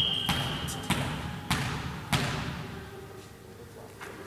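Referee's whistle held on one long steady note that stops about a second in, the signal to serve. Then a volleyball is bounced three times on the hall floor, about 0.6 s apart, each thud echoing briefly.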